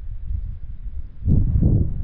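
Wind buffeting the microphone in a steady low rumble, with a stronger gust just over a second in.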